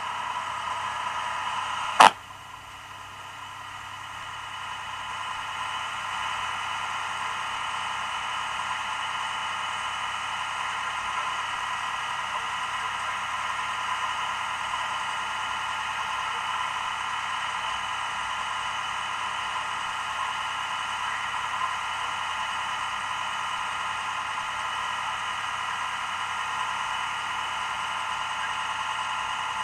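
Steady background noise with a faint banded hum, broken by one sharp click about two seconds in; the noise drops after the click and builds back over a few seconds.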